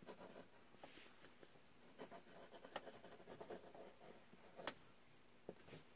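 Faint scratching and light ticks of a 1960s Sheaffer Skripsert fountain pen's inlaid steel nib writing a word on lined paper.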